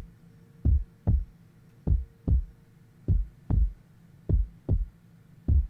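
Slow heartbeat-style beat at the start of a song: deep double thumps, lub-dub, with a pair about every 1.2 seconds, five pairs in all, over a faint steady hum.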